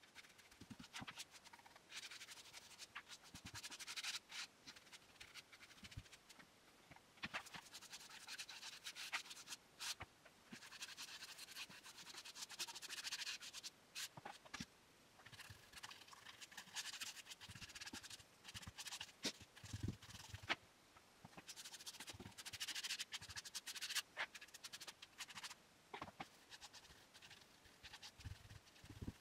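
A small brush scrubbing over bare spruce boards in repeated bursts of quick strokes, each run lasting a few seconds, with scattered light clicks and knocks in between.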